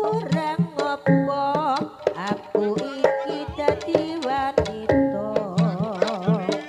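Live jaranan gamelan music: hand-drum strokes over ringing gong-chime notes, with a wavering melody line on top.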